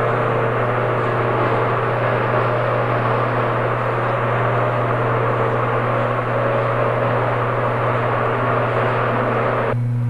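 Feed mixer wagon and its tractor running in a dairy barn's feed alley: a steady machinery noise with a constant low hum, cutting off abruptly near the end.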